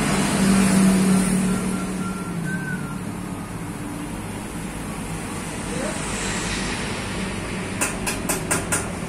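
A motor vehicle engine running nearby, loudest in the first two seconds and then easing to a steady background hum. Near the end come about five quick, sharp clicks.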